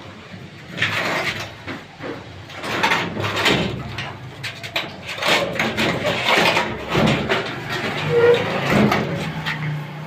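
Sheet-metal casing of a scrap split-AC outdoor unit scraping and knocking on the floor as it is pulled out and tipped over, in a run of irregular rasping scrapes.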